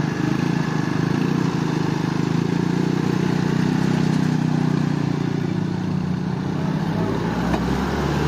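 An engine running steadily, its note dropping lower about seven seconds in.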